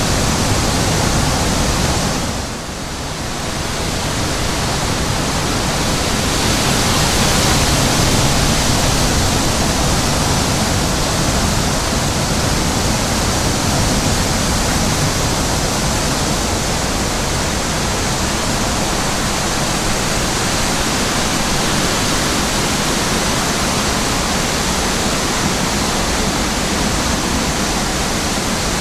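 Wind blowing over the microphone in an open field, a steady loud rushing noise that eases briefly about two and a half seconds in.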